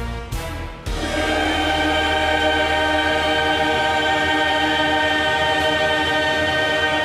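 Church choir singing, a couple of sharp hits in the first second, then one long chord held steadily until the end.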